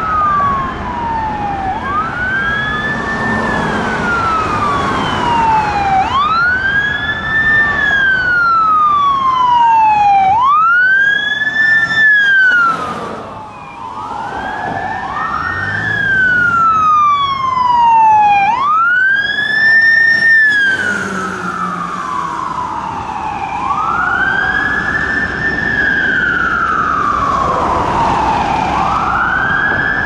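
Fire truck sirens wailing, each cycle rising quickly and then falling slowly, repeating about every four seconds. Two or more sirens overlap at times.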